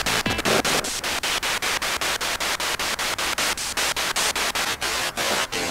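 Wonderbox spirit-box device playing hissing static through a small amplifier speaker, chopped into rapid pulses about six times a second.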